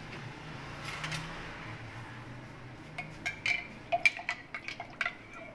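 A metal spoon clinking against a steel bowl, a quick run of sharp, ringing clinks in the second half, as lemon juice is spooned over the spiced fish.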